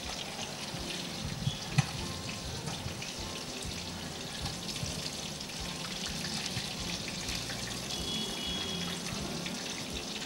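Hot oil sizzling steadily as chicken lollipops deep-fry, a dense crackle with one sharp click about two seconds in.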